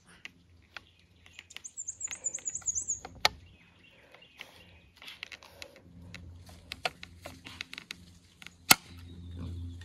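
Scattered clicks and rustles of a scoped bolt-action rifle being handled, with one sharp click near the end that is the loudest sound. A small bird trills briefly about two seconds in.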